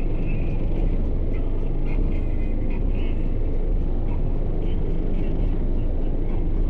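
Deep, steady bass from three Skar EVL 15-inch subwoofers on a 3,000-watt Audiopipe amplifier in an 11-cubic-foot box tuned to 31 Hz, heard from outside the truck.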